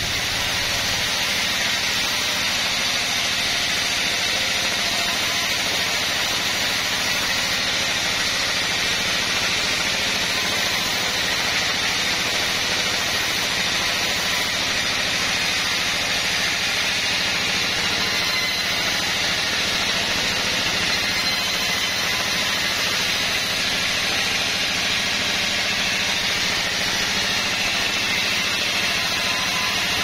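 Sawmill band saw running, its blade ripping lengthwise through a timber board: a steady hiss of cutting over the machine's even hum.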